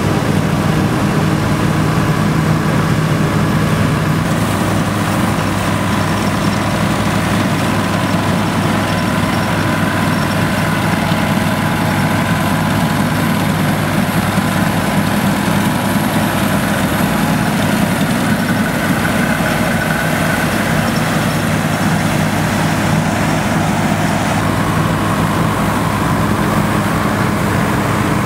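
Nuffield tractor engines running steadily under load while driving trailed Dronningborg combine harvesters threshing grain: a steady engine note mixed with the noise of the combines' threshing machinery.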